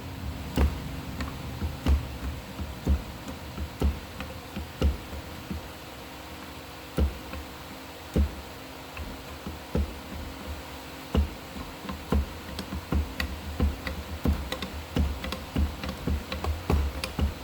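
Hand-operated bead forming tool being worked around metal tubing: irregular metallic clicks and knocks, about one a second at first and quicker and busier later on, over the steady hum of a shop fan.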